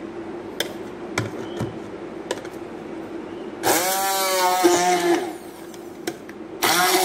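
Hand-held immersion blender run in two short bursts, chopping mango chunks into puree in a plastic jug; the motor's pitch drops just after each start as the blades bite into the fruit. A few light clicks come before the first burst, about three and a half seconds in.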